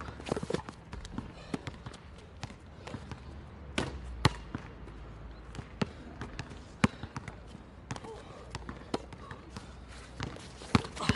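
A basketball bouncing on an outdoor hard court: scattered sharp bounces, mostly a second or more apart.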